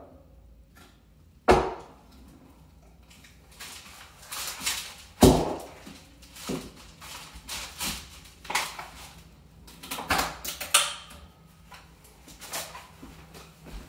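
Irregular knocks, clunks and scrapes of metal and wood as a cast iron radiator is worked on a wooden furniture dolly, with a sharp knock about a second and a half in and a heavy thump about five seconds in.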